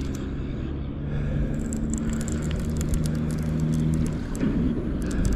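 A fishing reel being wound in with rapid light clicking while a channel catfish is played to the bank, over a steady low motor hum. The hum swells about a second in and fades near the end.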